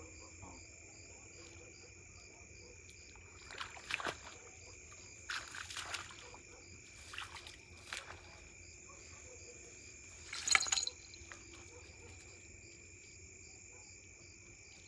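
Several short bursts of sloshing, splashing water from someone wading through reeds in the shallows, the loudest about ten and a half seconds in, over a steady chorus of crickets.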